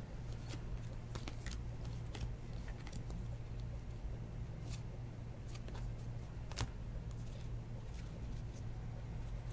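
2019 Bowman baseball cards being flipped and slid off a stack by hand: light, scattered clicks and rustles of card on card, one sharper click about six and a half seconds in. A steady low hum runs underneath.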